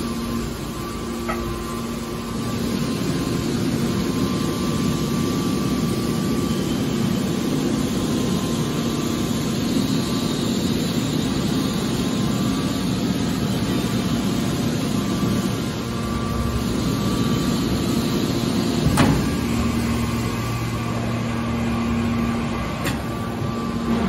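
Hydraulic scrap-metal baler running: a steady mechanical hum from its hydraulic pump and motor, with a single sharp knock a little past three-quarters of the way through, after which the hum deepens.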